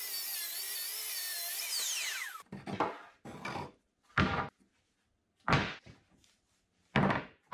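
Festool track saw ripping a rough-sawn red oak board along its guide rail, its motor whine falling as it spins down and stops about two and a half seconds in. Then about five wooden knocks as the heavy oak boards are moved and set down on the bench.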